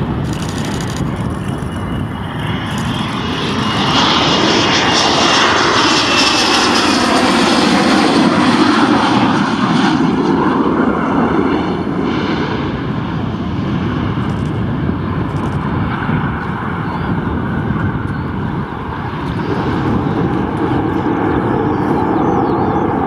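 Twin RB199 turbofan engines of a Panavia Tornado jet on landing approach. They grow loud about four seconds in, with a high whine that falls in pitch as the jet passes, then run on more quietly as it touches down and rolls along the runway. The engine noise swells again near the end.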